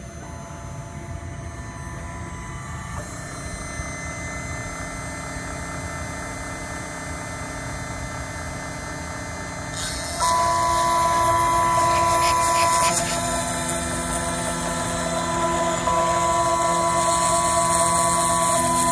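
Desktop CNC machine milling down the top of a phone IC chip to expose its pins. A steady whine shifts pitch in steps. About ten seconds in it gets louder and harsher, with a high hiss.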